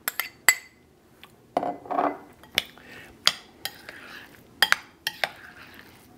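A spoon clinking and scraping against bowls as cherry tomatoes are spooned in and stirred into guacamole, giving about ten irregular sharp clicks.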